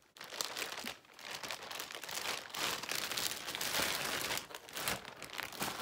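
Plastic bags crinkling and rustling as they are handled and pulled open, a clear zip-top bag among them.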